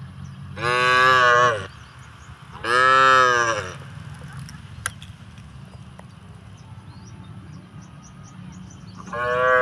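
Cow mooing: two long calls of about a second each, each rising then falling in pitch, and a third call starting near the end.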